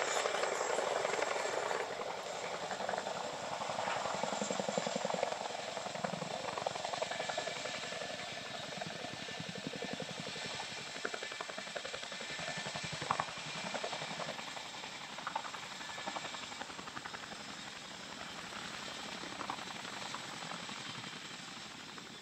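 Boeing CH-47 Chinook tandem-rotor helicopter hovering with a sling-loaded Humvee: a rapid, steady blade chop that grows gradually fainter.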